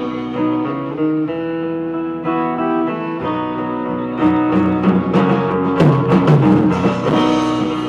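Live band playing an instrumental break between vocal lines: guitar notes ring out, and from about halfway in the drums and cymbals hit harder.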